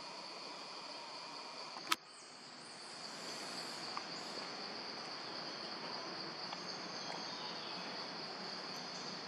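Steady high-pitched drone of insects in the trees, with one sharp click about two seconds in.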